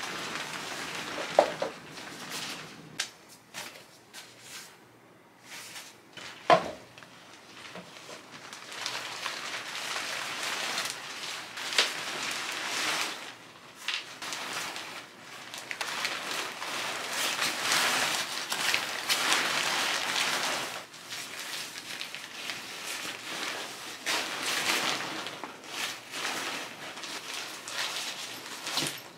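Synthetic camping-tent fabric rustling and crinkling as the tent is taken down, folded and rolled up by hand, coming in irregular swells. Two sharp knocks stand out in the first seven seconds.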